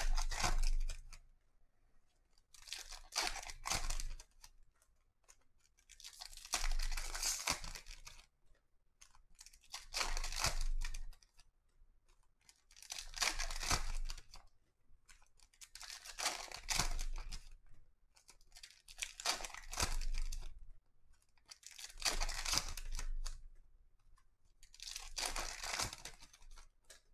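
Foil wrappers of trading-card packs being torn open and crinkled by hand, in about nine short bursts roughly three seconds apart.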